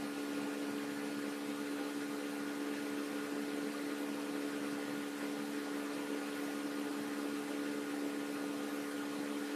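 Steady hum with several held low tones over an even hiss, unchanging throughout. This is the background noise of the recording setup, such as a computer or microphone hum.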